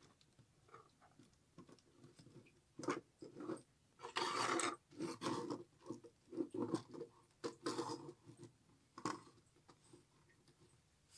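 Plastic LEGO pieces clicking, knocking and rattling as hands move and fold the hinged walls of a brick-built book playset, with a louder scrape about four seconds in.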